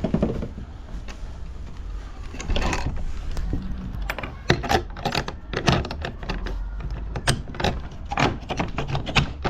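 A run of sharp metallic clicks and rattles from a lock and chain being fitted to secure a motorcycle, over a steady low rumble.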